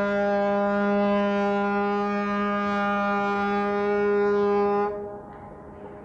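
Ferry's horn sounding one long steady blast that cuts off about five seconds in.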